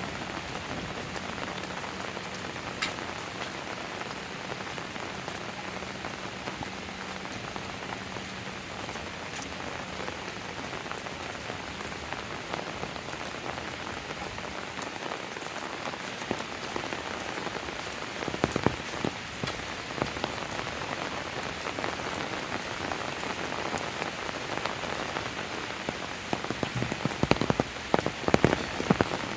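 Steady rain falling, an even hiss of drops, with bursts of louder, close-by drip clicks about two-thirds of the way in and again near the end.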